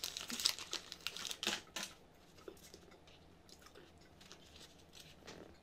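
Plastic snack wrapper crinkling and tearing as a chocolate mini cake is pulled out of it, busiest in the first two seconds, then only a few faint rustles.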